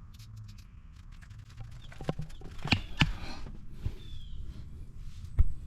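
A few scattered knocks and clinks from hands-on work at a car's rear wheel hub, the sharpest about five seconds in.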